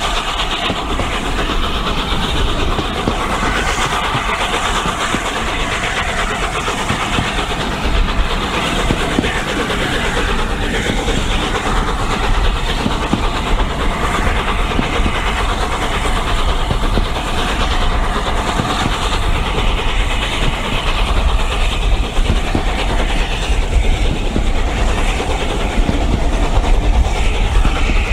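Steam-hauled train on the move, heard from an open carriage window: the two Pacific steam locomotives working hard up front, over the steady running of the carriage wheels on the rails. The noise is continuous and grows a little louder near the end.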